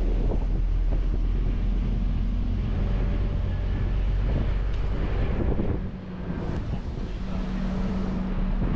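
A steady low engine drone with wind buffeting the microphone; the loudness dips briefly about six seconds in.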